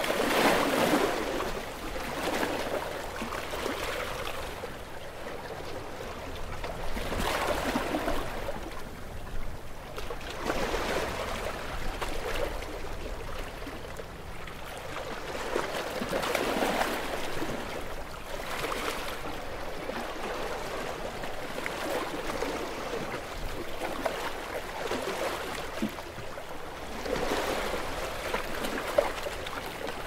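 Small ocean waves washing and lapping in, swelling and fading every few seconds.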